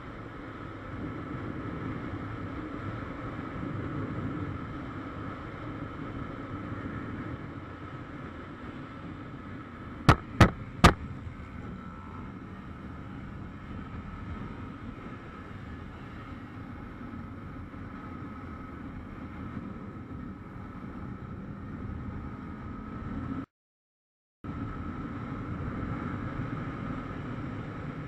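Motorcycle riding along a highway: its engine runs steadily under road and wind noise. About ten seconds in come three short, sharp cracks in quick succession, the loudest thing here, and near the end the sound cuts out completely for about a second.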